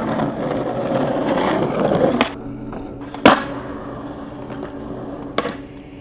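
Skateboard wheels rolling over rough pavement for about two seconds, then a sharp click of the board, a loud clack of the board hitting the ground about a second later, and another clack near the end.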